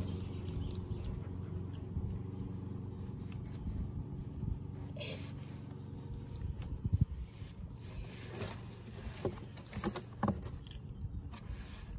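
A steady, low engine-like hum that slowly fades away, with scattered short scuffs and sniffs in the second half as a dog noses at a cardboard box.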